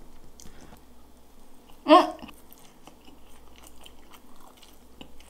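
Close-up chewing of a mouthful of French fries, with faint wet mouth clicks, and a brief vocal sound about two seconds in.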